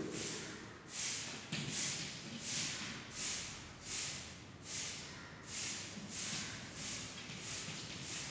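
Pen scratching on paper in a series of short strokes, a little more than one a second, as figures are written out.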